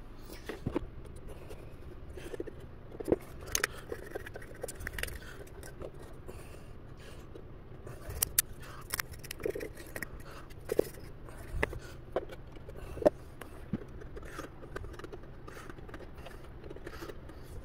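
Scattered light scrapes and small clicks of hand work in a carbon-fibre hull: a brush dabbing epoxy and laying carbon fibre around a battery tray.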